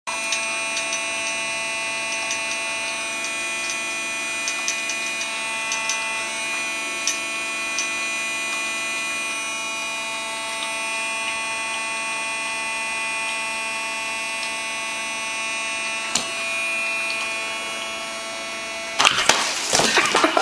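Small battery fan motor of an air-cushion hover soccer-ball toy running with a steady whirring hum. About nineteen seconds in, a loud burst of knocking and clattering breaks in as the kitten pounces on the toy.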